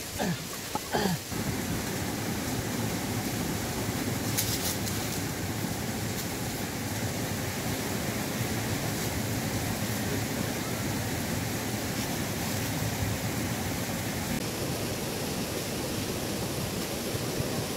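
A steady, even rushing noise, close to running water, after a few brief knocks in the first second.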